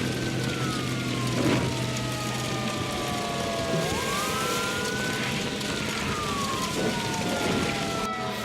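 Emergency vehicle siren wailing: a slow tone that falls, sweeps back up about four seconds in, then falls again, over a steady low engine hum.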